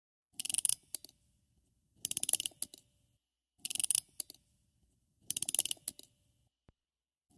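Clockwork key being wound, probably on a music box: four bursts of rapid ratchet clicks about one and a half seconds apart, each followed by a click or two.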